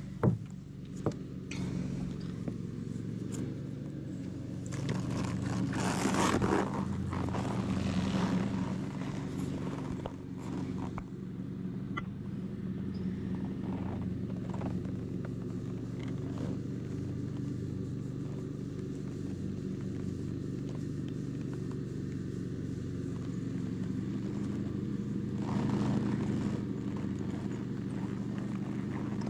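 Lawn mower engine running steadily, a low even hum, with a few louder scuffing noises about six seconds in and again near the end.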